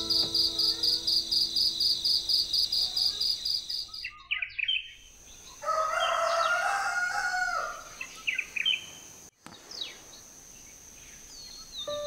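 Crickets chirping in an even pulse, about five chirps a second, cut off about four seconds in. Then a rooster crows once for about two seconds, amid scattered chirps of small birds.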